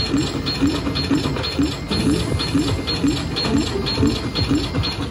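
Slot machine's electronic coin-clink tally sounds, repeating steadily about two to three times a second as bonus coin values are added into the total bonus win.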